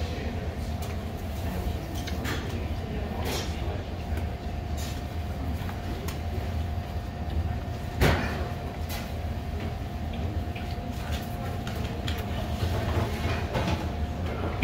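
Steady low rumble with a constant hum from room machinery, broken by scattered light clicks and knocks of eating at the table. The loudest is a sharp knock about eight seconds in.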